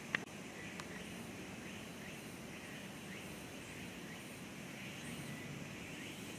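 Outdoor ambience: a steady background noise with a few faint chirps, and two sharp clicks right at the start.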